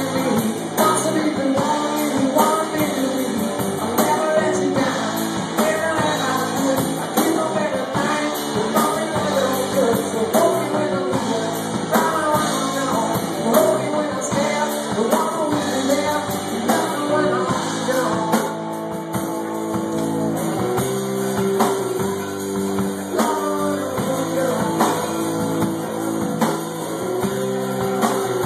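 Live rock band playing: a male singer singing over electric guitars and a drum kit. The singing drops out about two-thirds of the way through, leaving guitars and drums.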